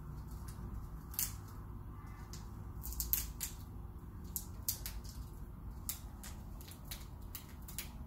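Indian ringneck parakeet picking at a hanging treat ball with its beak to get a peanut out: irregular sharp clicks and taps, a dozen or more, some louder than others.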